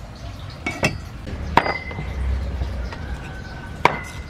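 Small ceramic bowls clinking: a few sharp clinks, the loudest about a second and a half in and another near the end, each followed by a brief ring.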